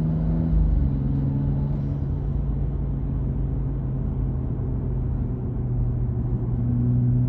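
BMW M235i's turbocharged 3.0-litre straight-six engine humming steadily while driving, heard inside the cabin over low road rumble. Its pitch drops a little about half a second in, and it grows slightly louder near the end.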